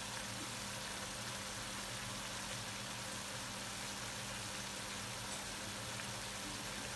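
Chopped wild greens sizzling steadily in a frying pan on a gas burner, with a steady low hum underneath.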